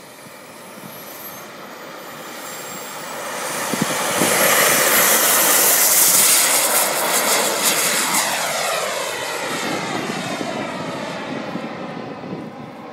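JetCat P140RX model jet turbine at high power during an RC jet's takeoff run: a high whine over a rush of exhaust. It grows louder as the jet approaches and is loudest as it passes close, about five seconds in, then fades as the jet climbs away.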